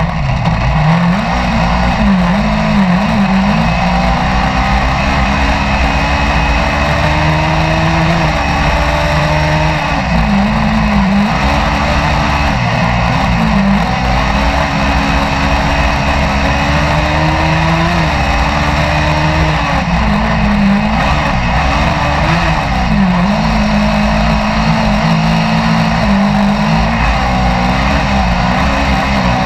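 Race car engine heard from inside the cockpit as the car laps a dirt track, its revs dipping and climbing again and again as the driver lifts and accelerates through corners.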